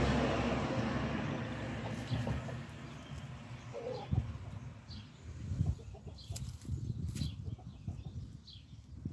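Outdoor sounds: a vehicle's noise fading away over the first few seconds, then scattered rustling and clicking in leafy undergrowth, with a few brief high chirps and one short call about four seconds in.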